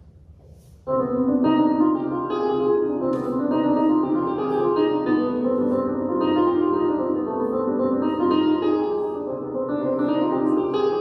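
Electronic keyboard starts playing about a second in, several notes at once in a steady run of chords, heard through its small amplifier.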